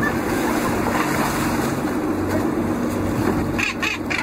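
Boat engine running steadily under the rush of sea water and wind, with a few short sharp noises near the end.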